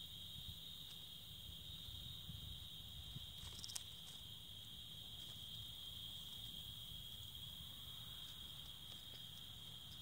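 Crickets trilling in a steady, unbroken, high-pitched chorus.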